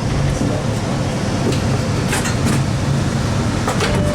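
Steady low rumble and hum inside a CRRC-built MBTA Orange Line subway car as it runs into a station. There are a few short hisses about two seconds in and again near the end.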